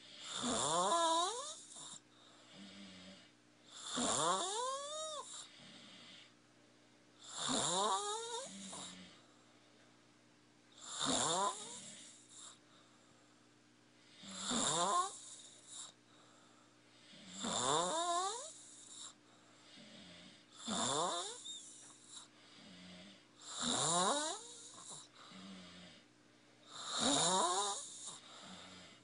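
A sleeping child snoring in a steady rhythm: one snore about every three and a half seconds, each rising in pitch as it goes, with a softer breath out between snores.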